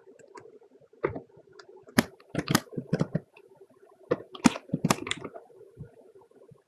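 Computer keyboard typing: two short runs of keystrokes, one starting about a second in and another around four seconds in, over a faint steady hum.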